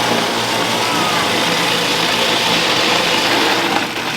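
Electric snow cone machine running, its motor humming steadily while it shaves ice, then stopping shortly before the end.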